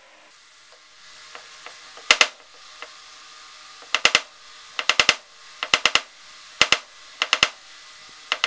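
Sharp clicks in quick pairs and triples, about one group a second, from handling the tire-ball air lines, needles and valves while the balls inside an ATV tire are drained down to pressure.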